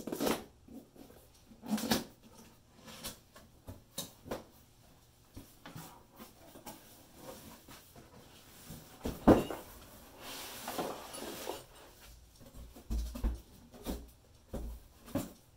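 Cardboard shipping box being opened and handled by hand: flaps pulled open and the pulp packing tray and wrapped parts inside moved about, a run of knocks, scrapes and rustles. One sharp bump comes about nine seconds in, followed by a longer rustle.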